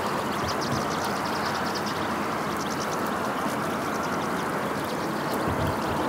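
A flock of European goldfinches twittering: many short, high calls overlapping over a steady rushing background noise.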